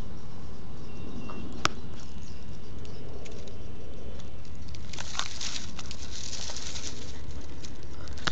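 Squirrel nibbling and rummaging at a plastic bag of food close to the microphone: small clicks and crinkles, a sharp click about a second and a half in, and a burst of rustling about five seconds in, over a steady low rumble.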